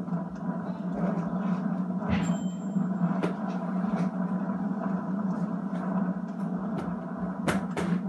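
Steady low hum and background noise from an old video recording playing through a television, with scattered faint clicks.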